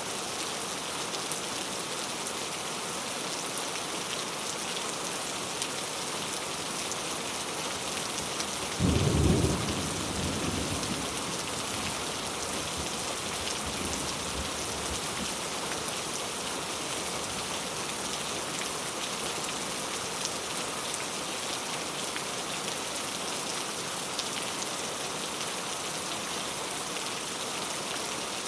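Heavy rain falling steadily, with one clap of thunder about nine seconds in that rumbles away over the next few seconds.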